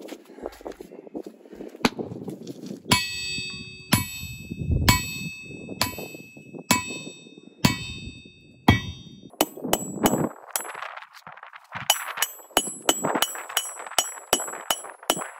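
Hammer blows on the steel body of an anvil, each a sharp clang that rings on. The blows come about once a second at first, then quicken to two or three a second from about nine seconds in.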